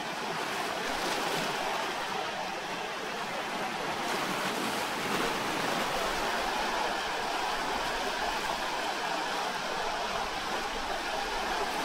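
Ocean surf washing over volcanic shoreline rocks: a continuous, steady rush of breaking water with gentle swells in loudness.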